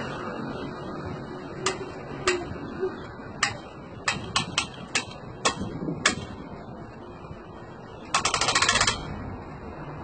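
Sharp metal clicks and knocks from fitting an air-conditioner outdoor unit onto its wall brackets, about nine spaced irregularly. Near the end comes a quick run of rapid, even clicks lasting under a second, like a ratchet being worked.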